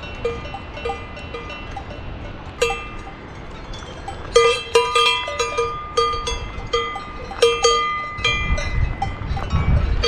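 Cowbells on alpine cattle clanking irregularly as the cows move their heads, each strike ringing briefly. The clanking grows louder and more frequent about halfway through.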